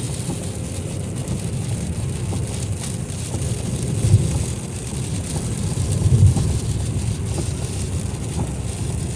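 Car driving along a wet, slick highway heard from inside the cabin: steady low road rumble with a hiss of tyres on the wet pavement, and two louder low thuds about four and six seconds in.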